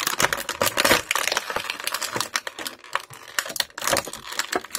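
Clear plastic blister tray of an action-figure package crackling and clicking in a rapid, irregular run as it is handled and pulled out of its cardboard box.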